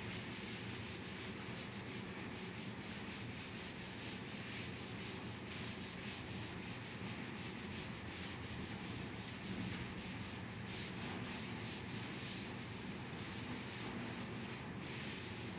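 A cloth wiping chalk off a chalkboard, rubbing in steady, repeated back-and-forth strokes.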